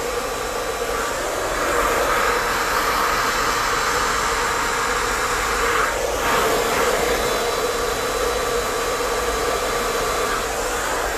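Hand-held hair dryer with a diffuser attachment running steadily, a continuous blowing hum; its sound shifts briefly about six seconds in.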